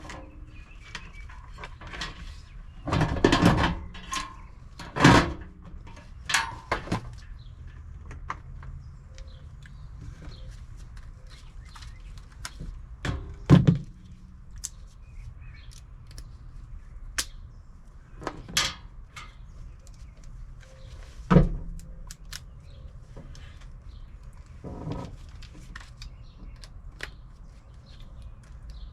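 Scattered knocks, clicks and rustles of hands and tools handling a furnace blower motor and its wiring, over a faint steady low hum.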